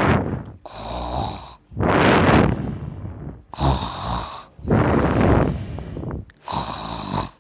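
A person snoring loudly, one noisy in-and-out breath after another, about six snores in seven seconds.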